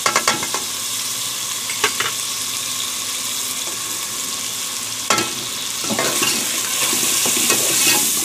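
Onions and spices sizzling in hot oil in a metal pot, a steady frying hiss. A few sharp clicks come as the spices are tipped in: at the very start, about two seconds in and about five seconds in. Over the last couple of seconds a metal ladle stirs and scrapes the masala.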